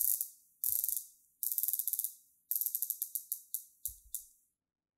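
Rolex Submariner 114060's unidirectional ceramic bezel turned quickly by hand: its ratchet gives rapid, crisp clicks in four quick runs.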